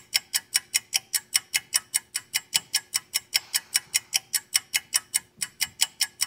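Clock-ticking sound effect: fast, even ticks at about five a second, marking time passing while waiting.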